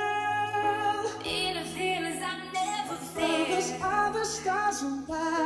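Background pop music with a sung vocal melody over a steady bass line.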